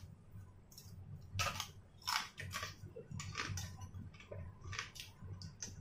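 Fried prawn crackers (kerupuk udang) being bitten and chewed close to the mouth: a string of short, crisp crunches at an irregular pace.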